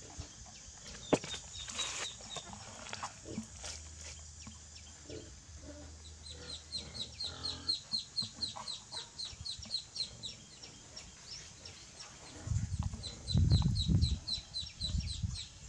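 Duckling peeping: a quick run of short, high, falling peeps, several a second, starting about six seconds in. Near the end a louder low rumbling comes in under the peeps.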